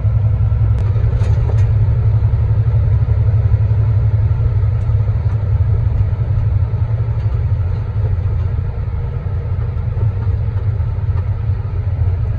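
Logging truck's diesel engine and road noise droning steadily while driving, heard from inside the cab, easing off slightly about two-thirds of the way through.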